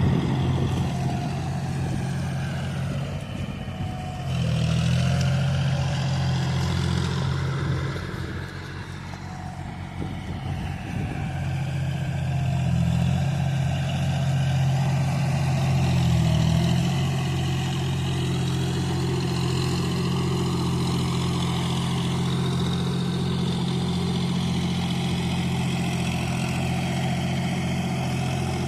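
Engine of a ploughing machine working a field, running steadily with a low, even drone; it grows quieter for a few seconds about a third of the way in, then comes back up and holds steady.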